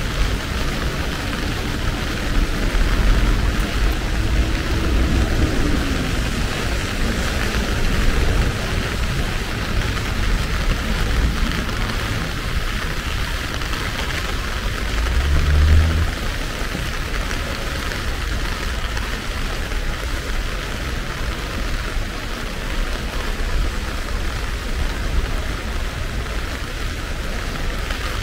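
Heavy typhoon rain falling steadily, a dense even hiss over a low rumble. A brief low thump comes about halfway through.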